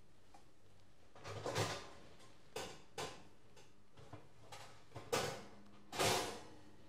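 Kitchen handling noises: a string of short knocks and scrapes, about half a dozen, the two near the end a little longer and the loudest.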